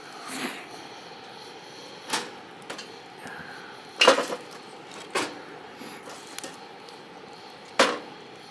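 A handful of sharp knocks and clatters, like objects being handled and set down, irregularly spaced over a faint steady background; the loudest comes about four seconds in.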